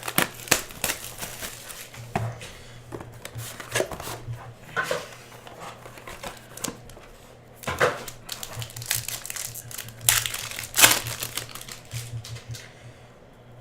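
Trading-card hobby box being opened by hand: irregular crinkling of plastic wrap and clicks and scrapes of cardboard, with the loudest handling noises about eight and eleven seconds in. A steady low hum sits underneath.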